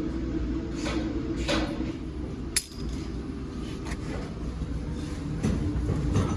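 Forging work on thin steel clavos: several light metal clinks and one sharp hammer blow about two and a half seconds in, over the steady hum of the forge.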